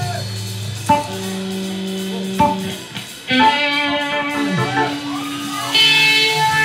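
Live reggae band playing, led by an electric guitar picking sustained single notes, with sharp attacks a few times and fuller, brighter playing from about halfway through.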